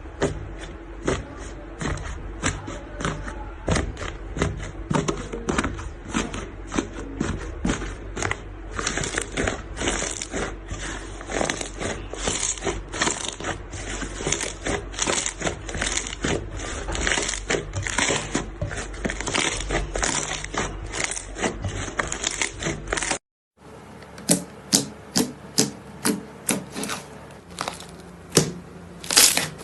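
Slime being squeezed and pressed by hand, giving a steady run of sharp clicking pops, about two to three a second. Near the end there is a short break, then a similar run of louder pops.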